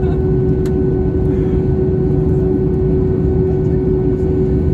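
Steady cabin noise of an Airbus A320 in flight: a continuous rush of airflow and engine noise with a constant droning tone running through it.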